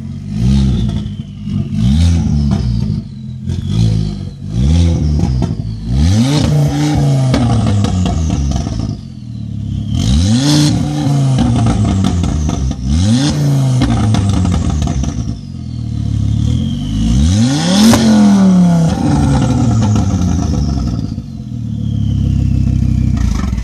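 Ford Focus XR5's turbocharged 2.5-litre five-cylinder engine, with the exhaust and resonator removed, being revved again and again in quick blips, about eight rises and falls in pitch, with the biggest rev about eighteen seconds in. A high whistle falls away after each blip.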